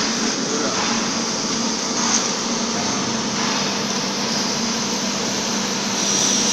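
Steady rushing air noise with a low hum from the plasma cutting machine's equipment, like a fan or air flow running. About six seconds in it gets a little louder and a steady high whine joins it.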